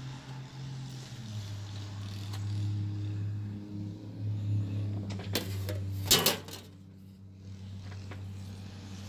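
Aluminium bottom case of a MacBook Pro being lifted off the laptop and put aside: a few clicks, then a louder metallic clatter about six seconds in. A steady low hum runs underneath throughout.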